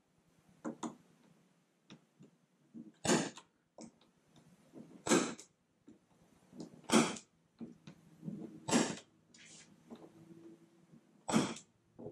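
Spring-loaded snap punch firing five times, one sharp snap about every two seconds, as it dimples the plastic kayak deck through the hatch's screw holes to mark where they go. Quieter handling clicks come between the snaps.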